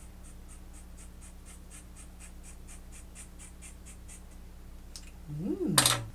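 Scissors snipping rapidly through a synthetic wig's hair, about four cuts a second, stopping about four seconds in. Near the end comes a brief hummed sound through pursed lips, ending in a loud smack.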